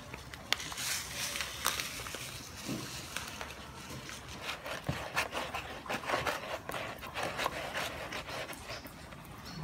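Irregular clicks, taps and scrapes of kitchen utensils and bowls during food preparation.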